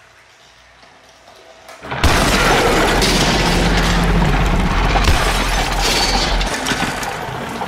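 A sudden loud crash, a long shattering, booming noise with a deep rumble, begins about two seconds in and runs some six seconds, accompanying a pile-up of motorised toy trains on the track.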